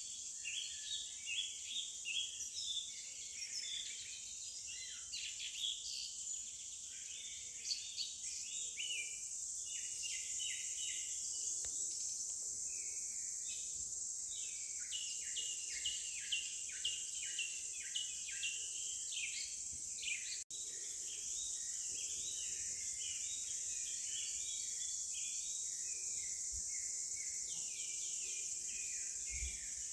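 Forest ambience: many birds chirping and trilling over a steady, high-pitched insect drone. The sound cuts out for an instant about two-thirds of the way through.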